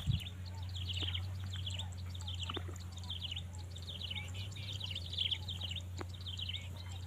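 Birds chirping: many short, quick falling chirps repeated throughout, over a low steady hum and a few faint clicks.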